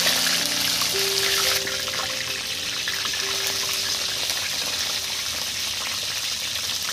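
Battered Bombay duck (lote fish) pieces deep-frying in hot oil, a steady hissing sizzle that drops a little in level about one and a half seconds in.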